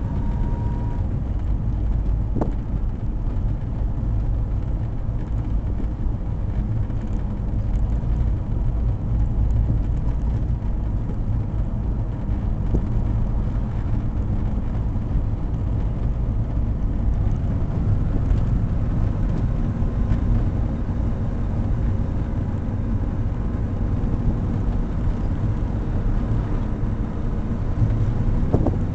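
Saab 96 V4 engine and road noise heard inside the cabin while driving: a steady low rumble, with the engine note shifting a little in pitch in the last ten seconds or so.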